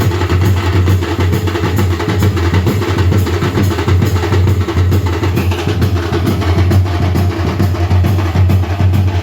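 Loud drum-led music with dense, rhythmic percussion strokes over a steady deep bass.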